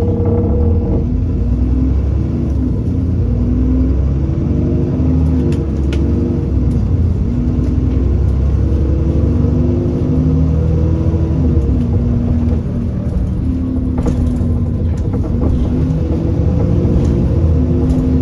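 Alexander Dennis Enviro400 double-decker bus on a Trident chassis, its diesel engine and drivetrain running under way, heard from on board: a steady heavy rumble with an engine tone that shifts up and down in steps, and a few faint clicks.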